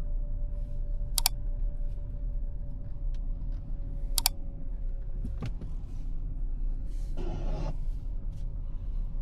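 Cabin noise of a Ford Territory hybrid SUV on the move: a steady low road rumble with a faint steady hum. Three sharp clicks come about three seconds apart, and a short hiss about seven seconds in.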